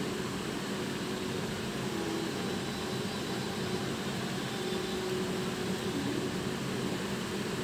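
Onions, tomatoes and green chillies frying in oil in an aluminium kadai: a steady, even sizzle.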